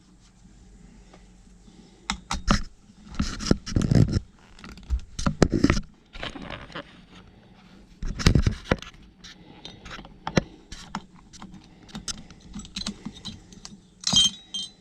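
Irregular clinks, clicks and scraping of small metal parts and hand tools being handled while the steering column trim is taken apart, with a bright metallic jingle near the end.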